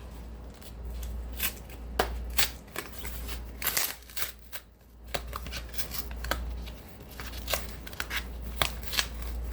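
Cardboard record mailer being pulled and ripped open by hand: a run of irregular crackling tears and scrapes of card and paper.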